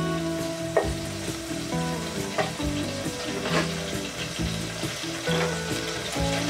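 Sizzling of frying in hot vegetable oil in a cooking pot, with a few sharp clicks, under background music of held notes that change every half second or so.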